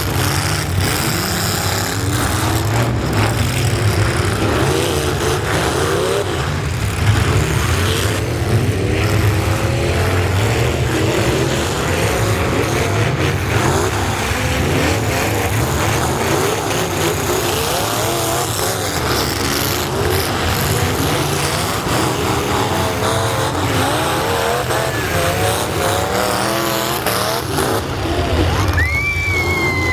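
Truck engines running and revving, with several engine notes rising and falling over one another. Near the end there is a brief high rising whine.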